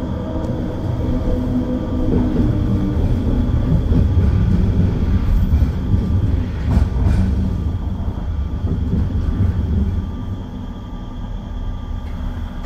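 SkyTrain car running along the guideway, heard from inside the car: a low rumble that builds and then eases off about ten seconds in, with two clacks about seven seconds in as it rolls over track switches.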